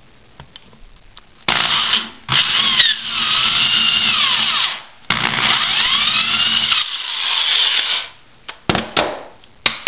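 Electric hand drill with a twist bit boring a hole through a small hardboard disc held on a wood block. It runs in two long passes, the motor's pitch dipping and rising as the bit loads and frees, then gives a few short blips of the trigger near the end.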